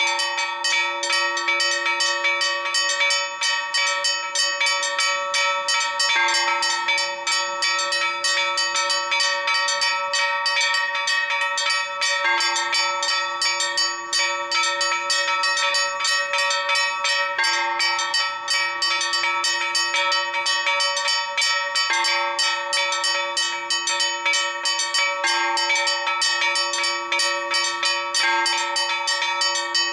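Four bronze church bells rung together in a Maltese festa peal: rapid, continuous strokes several times a second, the bells' tones overlapping. The lower bells drop out and come back every few seconds, so the pattern keeps shifting.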